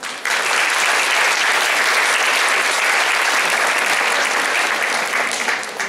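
Audience clapping, a dense steady applause that starts abruptly and fades away near the end.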